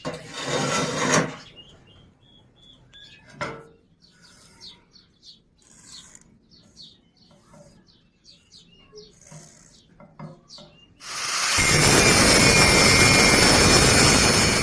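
A stick-welding arc giving a loud, steady hissing crackle for about three and a half seconds near the end, after a shorter loud burst at the start. Birds chirp in the quiet stretch between.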